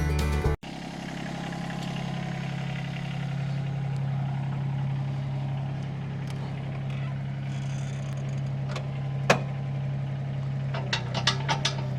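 Diesel engine of earthmoving equipment running steadily. There is a sharp metallic clank about nine seconds in and a few quick clanks near the end.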